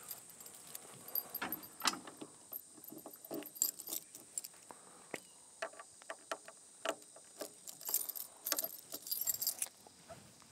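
A bunch of keys jangling, with scattered clicks as they are worked in the locks of a camper trailer's rear slide-out drawer to unlock it; the jangling is heaviest near the end.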